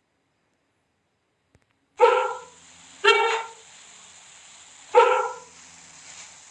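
Three short, sharp barking calls, the first two about a second apart and the third two seconds later, over a faint steady hiss.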